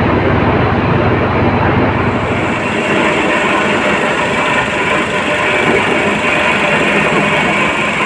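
Steady foundry machinery noise around an induction melting furnace and ladle. A deep hum drops away about two and a half seconds in, leaving steady noise with a faint high whine.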